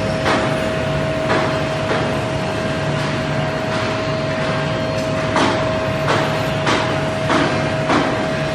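Woodmaster WM-1625R CNC router running: a steady high whine from the spindle, with sharp cracks from the cutting recurring about once a second, more often in the second half.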